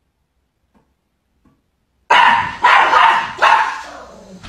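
Near silence for about two seconds, then a small dog barks three times, roughly two-thirds of a second apart, the last one trailing off.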